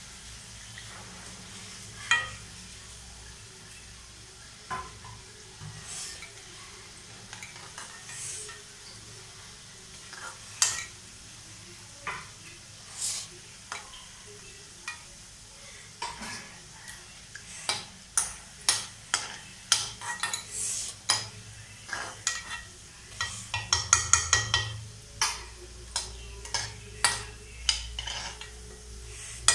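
Gulab jamun deep-frying in hot oil in a metal kadai: a steady low sizzle, with a steel spoon clinking against the pan as the balls are turned. The clinks come now and then at first, grow frequent in the second half, and cluster in a quick run near the end.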